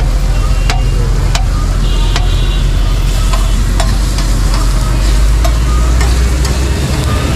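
Food sizzling on a hot flat griddle, with a metal spatula tapping and scraping against the plate in sharp clicks every half second or so. A steady low hum runs underneath.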